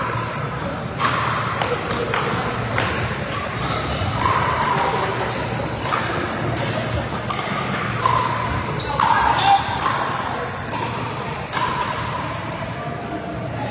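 Pickleball paddles hitting a plastic ball: irregular sharp pops, several in a row at times, ringing in a large sports hall.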